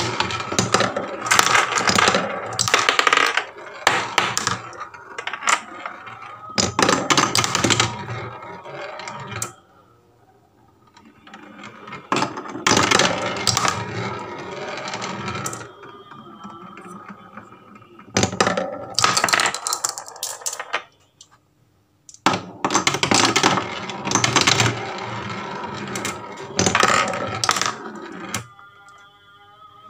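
Several marbles rolling around a plywood spiral marble-run track, clattering against its walls and each other in bursts. There are two short pauses, about a third and two-thirds of the way through.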